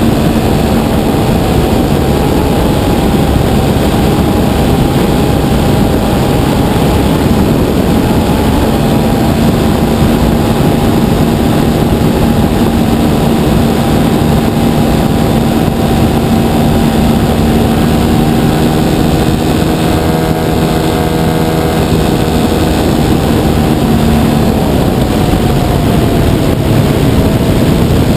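3W 275cc gasoline engine and propeller of a giant-scale RC Piper Cub running steadily at cruise throttle in flight, heard from a camera on the airframe with wind rushing past. The engine note sags slightly near the end.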